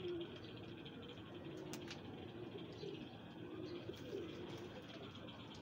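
Domestic pigeons cooing softly, a string of low warbling coos one after another.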